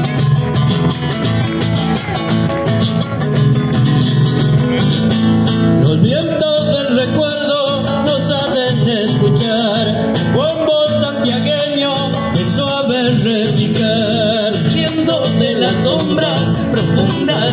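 Live Latin American folk music through a PA system: an acoustic guitar strummed, with singing coming in about six seconds in and carrying on over the guitar.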